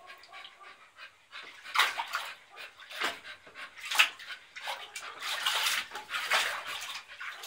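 A dog moving about in water in a small plastic paddling pool, making irregular splashes and sloshes, with the sharpest splashes about two and four seconds in and a longer busy stretch of sloshing in the second half.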